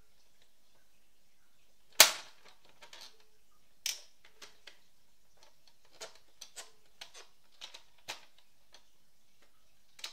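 Plastic snaps and clicks from an Epson Stylus Photo PX720WD printer's paper cassette being handled. One loud snap comes about two seconds in and a second one about two seconds later, then a run of lighter clicks as the paper guide is slid and set.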